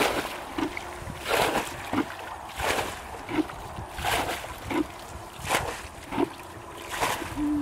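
Water being bailed out of a muddy ditch with a plastic bucket: a splash of flung water about every second and a half, six times, with the bucket scooping in between.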